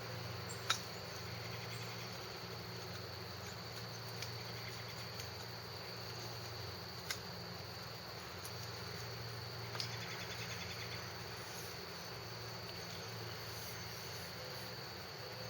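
Steady high chorus of crickets with a low background hum, broken by a few light clicks and taps as the buck saw's replacement blade is tightened into its frame.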